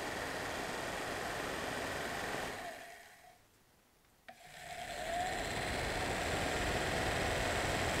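New radial interior blower motor for a Mercedes-Benz W212 E-Class, running on the bench with a steady whirr of its fan wheel. It dies away to near silence about three seconds in; a click follows about a second later and the motor spins back up with a rising whine, then runs steadily.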